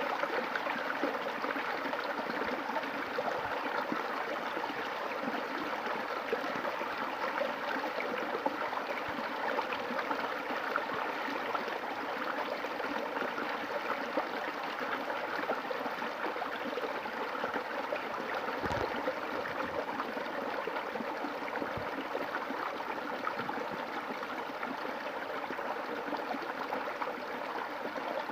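A river's water flowing and gurgling over rocks, a steady rushing with fine splashing detail. There are a few faint low bumps near the end.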